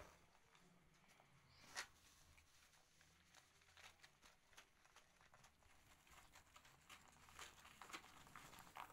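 Faint, scattered small clicks of kittens crunching dry kibble from a plastic plate, with one sharper click about two seconds in.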